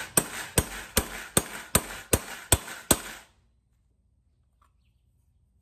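Hammer peening a new copper-cookware rivet against a steel stake to set it and fix the brass handle to a small copper pot. About eight quick, even blows come at roughly two and a half a second, and they stop about three seconds in.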